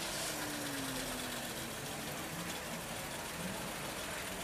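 Classic 1955 Chevrolet sedan's engine running at low speed as the car rolls slowly past, over a steady background of other idling cars; its engine note falls in pitch during the first second or so.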